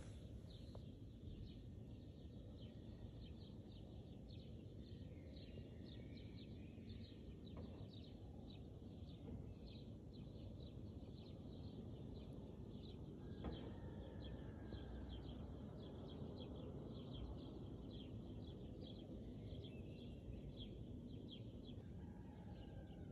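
Faint chirping of small birds, short chirps repeating several times a second with an occasional longer sliding call, over a low steady background noise.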